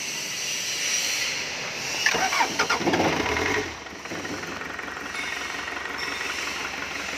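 Toyota forklift engine being started for the first time after a head gasket replacement: it catches about two seconds in with a loud, uneven burst of running, then settles to a steady idle.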